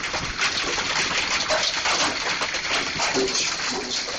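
Golf-ball-sized hail and heavy rain pounding down: a dense, rapid clatter of hailstones striking hard surfaces over a steady hiss of rain.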